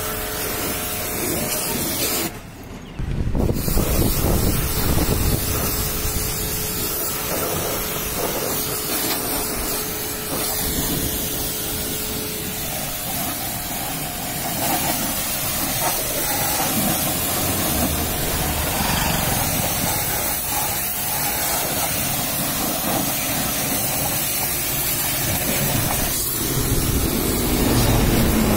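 Pressure washer jet spraying water against a vehicle's bumper, wheel arch and tyre: a steady loud hiss of spray with a steady hum beneath it. The spray cuts out briefly about two seconds in.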